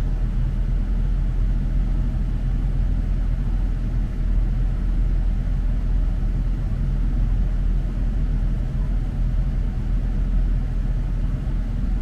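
2009 Chevy Silverado 1500 idling, heard from inside the cab as a steady low rumble.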